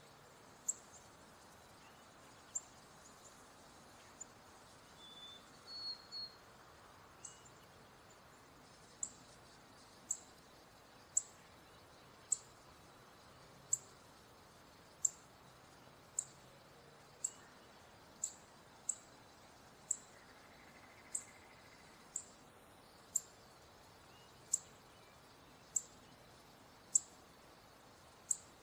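Male northern cardinal giving sharp, high chip calls, a few scattered notes at first and then a steady series of about one chip a second.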